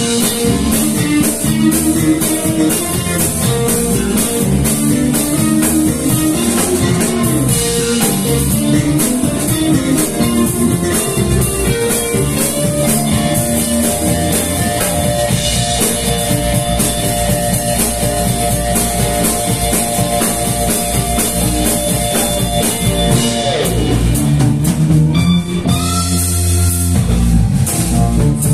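Live band playing an instrumental: electric guitars over drum kit, bass guitar and keyboard. A single high note is held for about ten seconds in the middle and then slides down.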